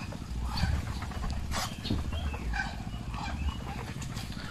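Scattered short calls from a flock of Muscovy ducks, over a steady low rumble.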